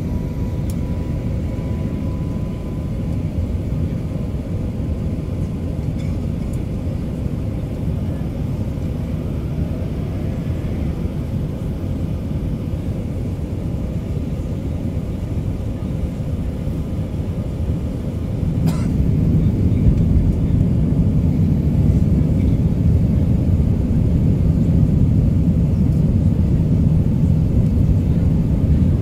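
Steady low rumble of engines and airflow inside the cabin of an Airbus A380-861 on descent. About two-thirds of the way in there is a brief click, and the low rumble then becomes louder and stays so.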